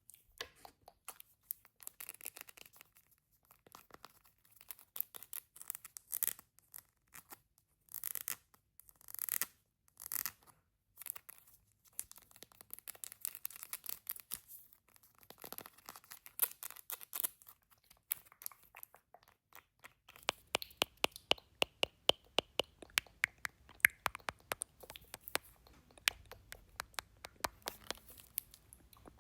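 Makeup items and tools handled close to the microphone: irregular scratching and scraping with short brushy bursts, then from about twenty seconds in a quick run of light taps and clicks.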